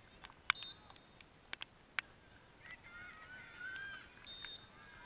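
Field hockey match sounds: a few sharp cracks of sticks striking the ball in the first two seconds, and players shouting in the middle. Two short umpire's whistle blasts, one about half a second in and a louder one near the end.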